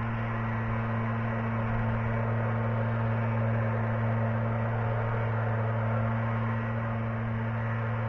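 Steady low hum with an even hiss over it, unchanging throughout, like mains hum picked up by the camera's microphone.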